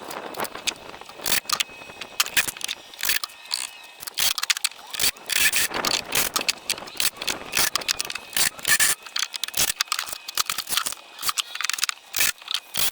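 A rapid, irregular clatter of sharp clicks and knocks with some scraping.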